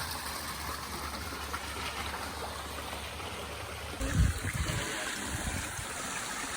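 Steady rush of running water from the creek below the falls. About four seconds in the sound changes abruptly, and a brief low thump follows.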